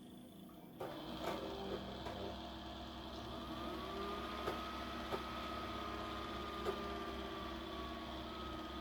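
Desktop PC powering up, its fans spinning up to a steady hum. A whine rises about three and a half seconds in and holds, with a few light clicks. The GeForce GTX 950 video card's fan is unusually noisy on this first boot after a CMOS reset.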